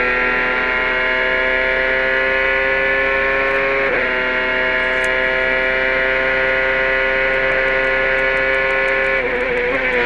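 A Toyota turbocharged V8 in a 2002 CART Champ Car at full throttle on a straight, heard from onboard. The engine note climbs slowly, drops sharply with an upshift about four seconds in, then climbs again. The note falters near the end.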